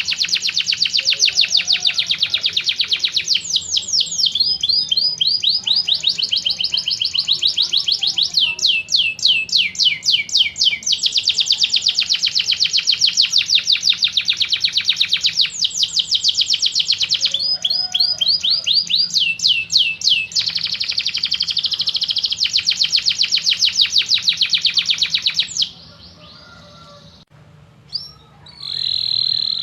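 Domestic canary singing a long, continuous song of fast, high trills, switching from one trill to another every second or two. The song breaks off a little over 25 seconds in, and a short phrase follows near the end.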